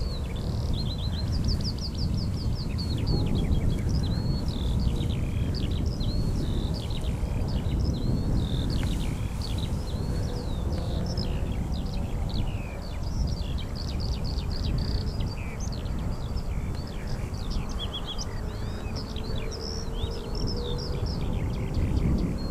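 A dense chorus of many birds chirping at once, with quick overlapping chirps and calls that never let up, over a steady low rumble.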